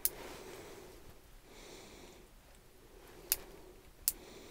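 Quiet room tone with a man breathing out through his nose about one and a half seconds in, and three sharp clicks, one at the start and two near the end.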